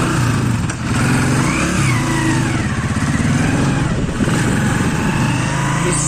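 Honda motorcycle engine running as the bike rides off at low speed, its pitch shifting a little.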